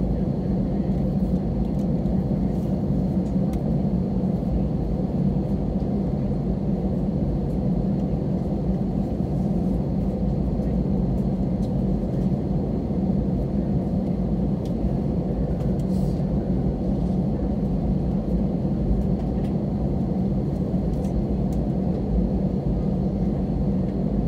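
Steady cabin rumble of an Airbus A320 taxiing slowly, heard inside the cabin by the wing, with the jet engines at low thrust and a faint high whine over the low drone. Nothing spools up in this stretch.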